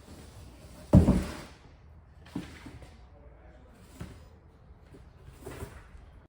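Large cardboard box holding a mini-split unit being handled and flipped over: one heavy thump about a second in, then a few lighter knocks and scuffs.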